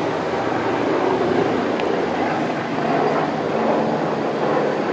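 Helicopter flying overhead: a steady, loud drone of rotor and engine noise with a fine, rapid flutter.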